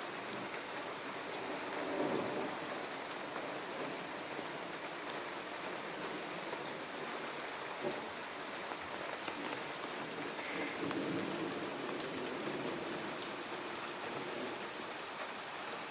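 Steady rain falling during a thunderstorm, with a low rumble of thunder swelling about two seconds in and again from around eleven seconds.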